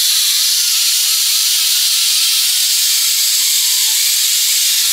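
Pneumatic air ratchet running on the bolt of a bushing press tool: a steady, loud hiss of exhaust air with a faint wavering whine.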